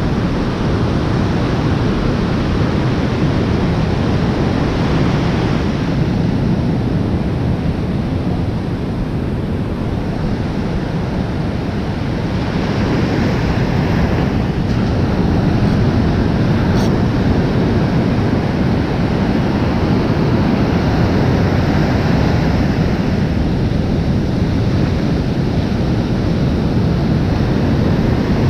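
Ocean surf washing onto a beach in a steady rush, with wind blowing on the microphone; the surf grows louder about halfway through.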